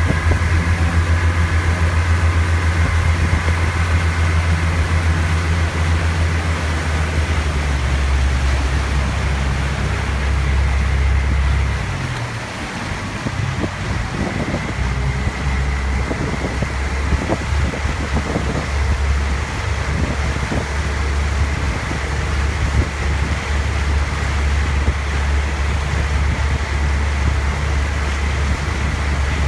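A motorboat's engine running under way, a steady low drone over rushing wind and water. The engine note drops about a quarter of the way in, eases off for a moment near the middle, then picks up again.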